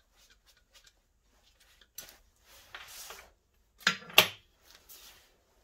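Hand tools and metal parts handled on a steel workbench while an ABS sensor clamp is bolted up: light ticks and scraping rattles, then two sharp metallic clanks close together about four seconds in.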